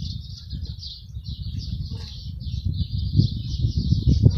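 Songbirds chirping continuously over a steady low rumble, with a faint click about two seconds in.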